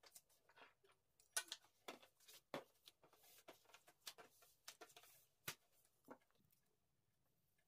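Faint rustling and light taps of hands handling thin sheets of hand-rolled pastry on a wooden table, with a sharp click about five and a half seconds in; it goes almost quiet near the end.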